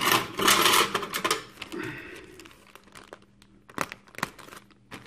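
Clear plastic bag around plastic model-kit sprues crinkling as it is handled and opened, loudest in the first second and a half. Quieter rustling follows, with two sharp ticks a little under four seconds in.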